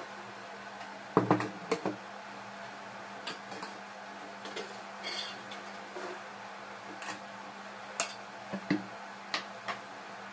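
Stainless-steel utensils clinking and knocking as they are handled and stacked at a steel sink. A quick cluster of loud clanks comes about a second in, followed by scattered single clinks of metal on metal.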